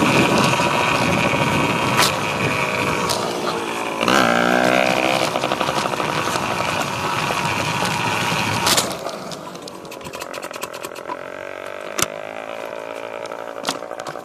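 Dirt bike engine running hard with its revs shifting about four seconds in, then dropping suddenly near nine seconds to a quieter, lower note. A few sharp clicks or knocks sound over it.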